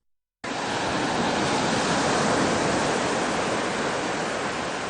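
Sea surf breaking and washing on the shore: a steady rush of water that swells a little and eases off, cutting in after a split second of silence at the start.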